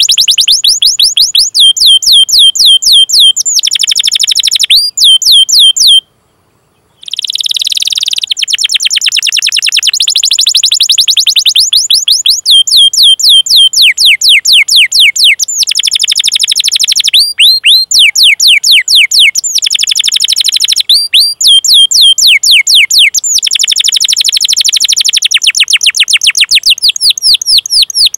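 Domestic canary singing long rolling trills of rapid, repeated downward-sweeping 'cuit cuit' chirps, in several long runs broken by a brief silence about six seconds in.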